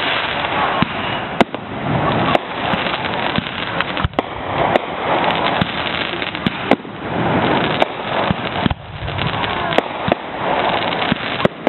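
Fireworks going off: a continuous crackle broken by sharp bangs about once a second.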